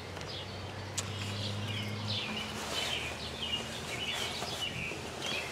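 Small birds chirping and calling, many short notes one after another. A low steady hum sounds beneath them for the first two seconds or so.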